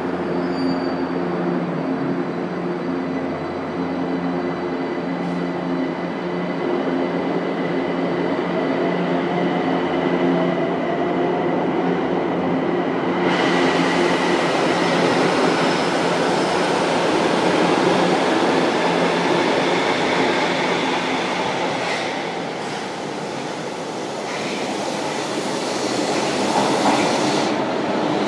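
São Paulo metro trains: a train's motors hum, with a whine rising slowly in pitch as it gets moving. About halfway through, a loud rush of wheels and air takes over as metro cars run past close by at speed.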